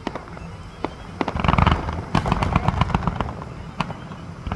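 Fireworks going off: a heavy boom about a second in, followed by a rapid run of sharp crackling reports.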